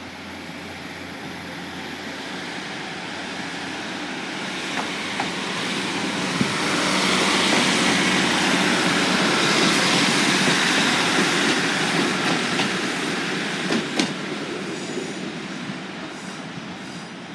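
An East Midlands Railway Class 156 diesel multiple unit pulling away and passing close by. Its engine and wheel-on-rail noise swell to a peak about halfway through, then fade as it moves off. A few sharp clicks come from the wheels crossing the track.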